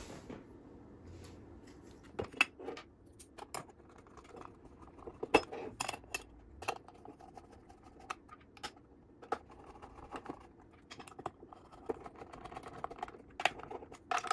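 Irregular small clicks, taps and clatters of a hand driver working screws in a robot's aluminium chassis and of the metal chassis being handled on a wooden bench, with one sharper knock about five seconds in.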